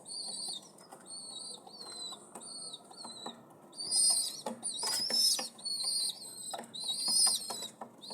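Newborn nestling birds cheeping: a continuous run of short, high, slightly wavering calls, about half a second each, growing louder around four and seven seconds in.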